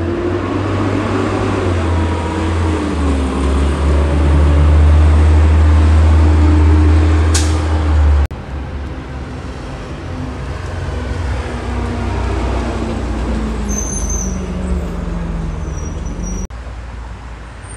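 Diesel engine of a side-loading garbage truck running close by, a heavy low hum over road traffic. It cuts off abruptly about eight seconds in and is followed by a quieter passing engine whose pitch slowly shifts, with brief high squeals near the end.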